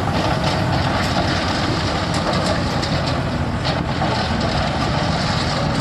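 Diesel engine of a JCB construction machine running steadily, with a continuous low engine rumble.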